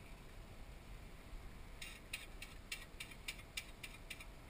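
Fishing reel clicking under the load of a hooked fish: faint, even clicks at about three to four a second, starting about two seconds in.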